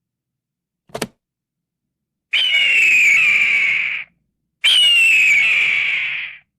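Eagle screaming: two long, harsh calls, each starting high and sliding slightly down before holding steady, with a short gap between them. A brief click comes before the first call.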